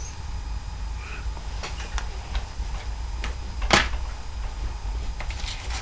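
Clicks and taps from handling a plastic DVD case, with one louder snap a little under four seconds in.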